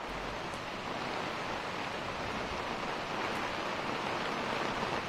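Rain pouring down steadily, an even hiss with no breaks.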